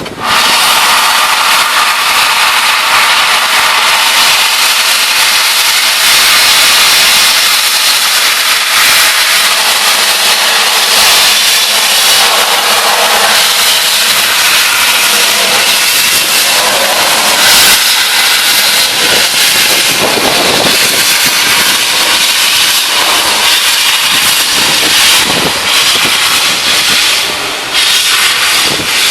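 LNER A3 Pacific steam locomotive 'Flying Scotsman' letting off steam with a loud, steady hiss.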